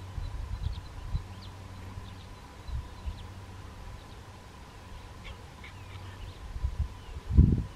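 Faint, short bird chirps over a low, uneven rumble, with a loud low thump near the end.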